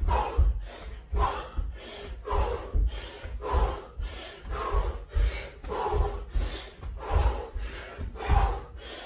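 Jump lunges on a carpeted floor: a dull landing thud and a hard, forceful breath with each jump, in a steady rhythm of roughly three every two seconds.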